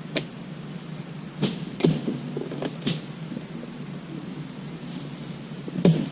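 A dodos, the chisel blade on a long pole used to harvest oil palm, jabbing into the base of a palm frond: about five sharp knocks at uneven intervals, the loudest near the end. The cutting is hard going, which the harvester wonders may come from a blade that is not sharp enough.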